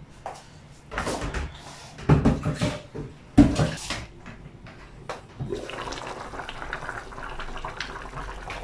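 A few clatters and handling knocks. About five seconds in, the glass lid comes off a pot of chicken stew, and a steady simmering hiss and bubbling carries on.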